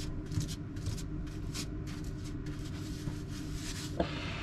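Bristle paintbrush stroking contact adhesive onto a surface: a run of quick, scratchy swishes, about three a second, over a steady low hum.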